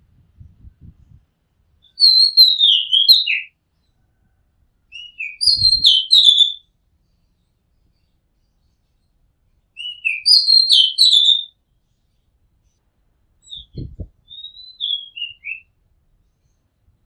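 Oriental magpie robin singing: four short phrases of clear, varied whistled notes, each a second or two long, a few seconds apart.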